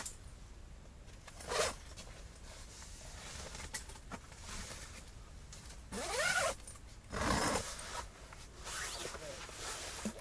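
Zipper on the fabric wall of an ice-fishing tent being pulled open and shut in a few quick rasping strokes, the loudest a little past halfway, with fabric rustling between.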